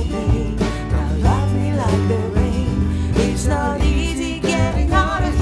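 A woman singing a slow pop song with a small band of acoustic guitar, upright bass, drum kit and keyboard.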